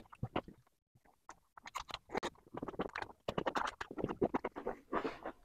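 Close-miked eating sounds: wet chewing and lip-smacking as a mouthful of gravy-soaked rice is eaten, along with fingers squishing and gathering the rice on a wooden board. It comes as a fast run of short wet clicks, starting after a brief pause.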